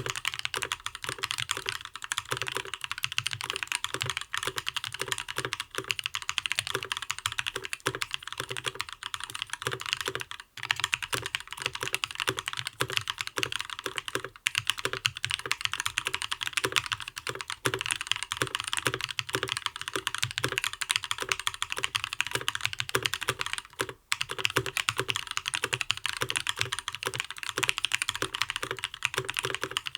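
Custom mechanical keyboard with lubed Gazzew Linear Thock switches on an aluminium plate and ePBT Soju PBT keycaps, typed on fast and continuously: a dense stream of keystrokes. The typing pauses briefly about a third of the way in and again near the end.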